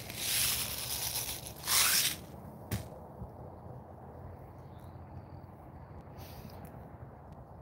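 Rustling and scraping from hands and clothing close to the microphone while a slingshot pouch is loaded with BBs. The two loudest rustles come in the first two seconds, with a single sharp click just under three seconds in, then only faint handling.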